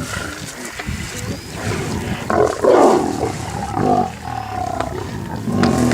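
Lion growling and snarling, with the loudest outbursts about halfway through.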